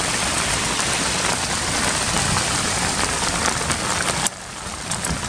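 Steady rush of water from a storm-swollen river, with a drain outflow gushing into the muddy current. About four seconds in, the rush cuts off sharply and goes on quieter and more even.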